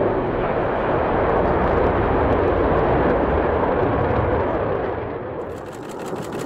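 F/A-18 Hornet fighter jet engine noise as the jet passes, a loud, steady rumble that eases off about five and a half seconds in while a fine crackle comes in over it.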